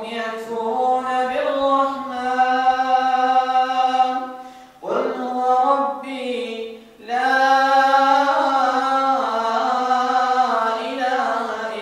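An imam reciting the Quran aloud in a melodic, drawn-out chant, one man's voice holding long notes. It comes in three long phrases, with short breaks for breath about four and a half seconds in and again about seven seconds in.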